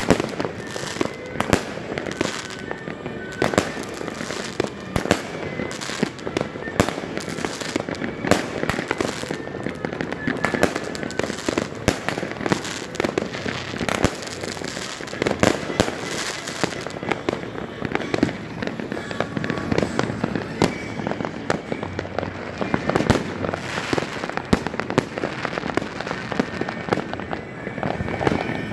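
Many fireworks going off at once: aerial shells bursting and bangs in quick, irregular succession, dozens of them overlapping throughout.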